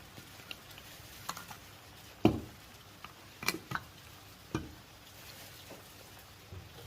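Scattered light clicks and knocks over a faint steady hiss of rain, the loudest a single thump about two seconds in.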